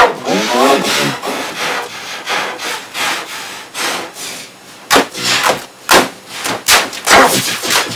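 A computer keyboard being pounded and scraped, heard as a loud, irregular string of knocks and rasping clatter through heavily filtered, pitch-shifted audio, with a short wavering cry about half a second in.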